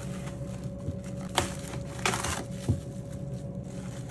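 Plastic cling wrap crinkling as it is stretched and smoothed over a wooden rolling board, with a sharp tap about a second and a half in and a short rustle just after two seconds. A faint steady hum runs underneath.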